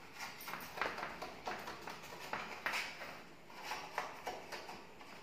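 Knife blade scraping and tapping around the inside edge of a loaf tin, loosening a baked loaf: a faint, uneven run of short scrapes, two or three a second.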